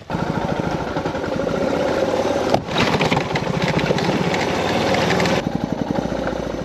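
Motorcycle engine running, its firing pulses coming through as a fast, even chugging, with a brief break a little over two seconds in.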